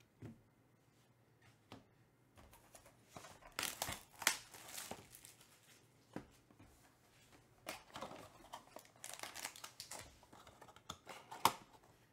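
Sealed trading-card box being handled and unwrapped: its plastic wrapping crinkles and tears in scattered bursts, with sharp clicks and taps of the box and hard plastic card holders being set on the table, the loudest click near the end.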